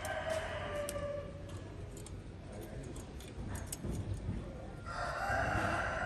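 A rooster crowing twice: the tail of one crow fading out about a second and a half in, and a second, louder crow starting near the end. A few faint clicks lie between them.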